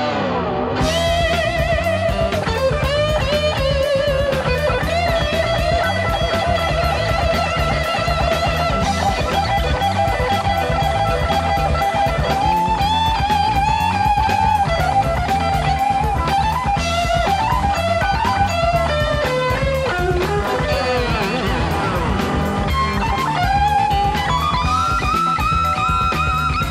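SELDER Stratocaster-style electric guitar playing a rock lead of long sustained notes, their pitch wavered and slid with the tremolo arm, over a backing of drums and bass.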